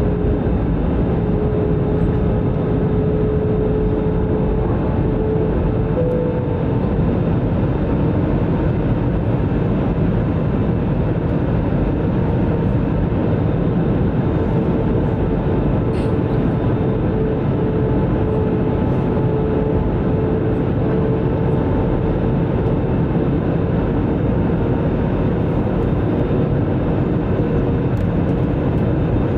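Steady cabin noise of a jet airliner in descent: engines and rushing air, heard from inside the cabin over the wing, with a thin steady tone running through it.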